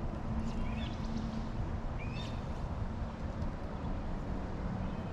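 Steady low rush of a flowing stream, with a few short bird chirps about one and two seconds in.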